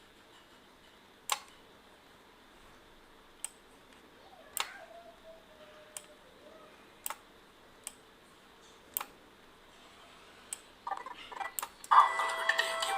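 Computer mouse clicking, about nine separate clicks spread out over faint hiss. About a second before the end, loud music playback starts abruptly.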